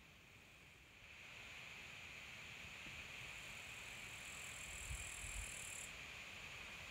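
Faint lakeside ambience: a steady hiss that grows a little louder about a second in, with two soft low bumps about five seconds in.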